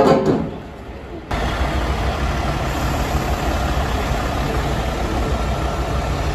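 A semi-truck's diesel engine running low and steady while it tows a house on a trailer, with street noise around it. It cuts in suddenly about a second in, after the fading tail of another sound.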